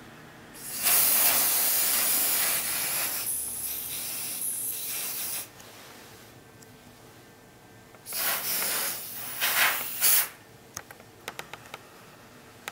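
Nano Protech aerosol coating spray hissing from the can in one long spray of about five seconds, then a second, broken-up spray of about two seconds. A few light clicks follow near the end.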